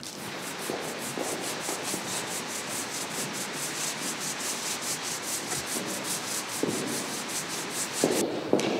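Push broom scrubbing back and forth across a wet stage floor in quick, even strokes, about four a second, stopping shortly before the end.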